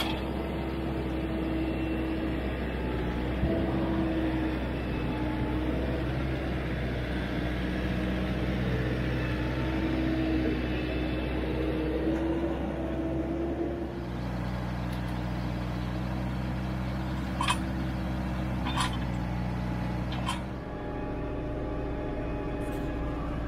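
Branson 5220 tractor's diesel engine running steadily under work, its note shifting about two-thirds of the way through. Three short clicks or knocks come in close succession late on.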